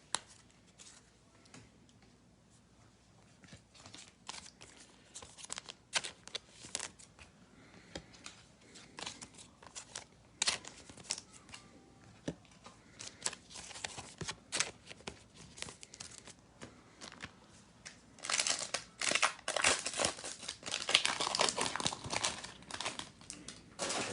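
Foil wrapper of a 2021 AEW trading card pack crinkling and tearing as it is handled and opened. Scattered light crackles come first, then a denser run of crinkling near the end.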